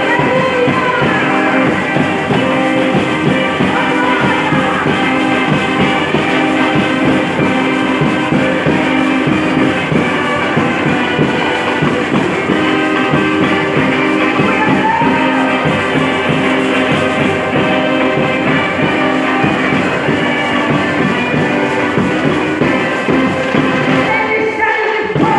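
Church orchestra playing worship music: held melodic lines over a steady beat.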